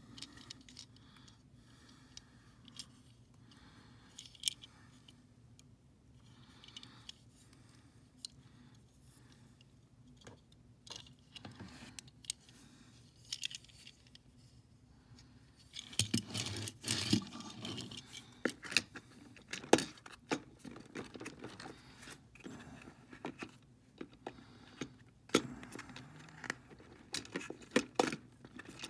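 Hands handling a small die-cast metal toy car and a plastic storage case. Faint, sparse clicks and light rubbing come first. About halfway through, a busier run of sharp clicks, rattles and scrapes sets in.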